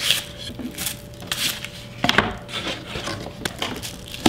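Cardboard box packaging being handled: irregular rustling, scraping and light knocks as the contents are taken out.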